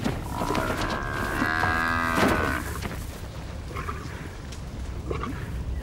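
A Cape buffalo bellowing in distress while lions hold it down and bite into it: one long moaning bellow in the first half, then a few short, quieter calls over a low steady rumble.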